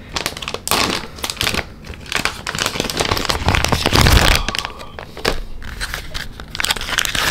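Plastic blind-bag packaging crinkling and rustling as it is handled and opened, with the figure's paper insert and plastic wrapping pulled out: irregular crackles, densest about halfway through, where there is also a low thump.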